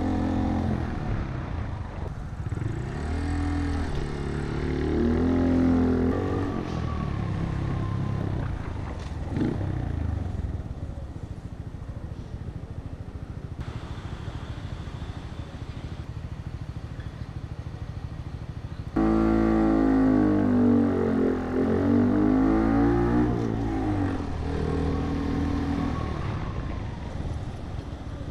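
Honda Monkey's single-cylinder four-stroke engine running through a Yoshimura exhaust, heard from the handlebars: revs climb and drop several times at town speeds, settle to a quieter, steady run in the middle, then pick up sharply louder about two-thirds of the way in with more rising and falling revs.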